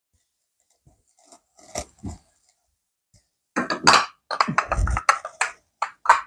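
Hard household objects clinking and clattering as they are handled: two light knocks, then from about halfway a busy run of clatter.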